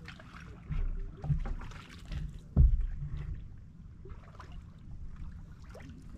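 A small wooden fishing boat on the water, with a steady low rumble and several dull thumps; the loudest thump comes about two and a half seconds in.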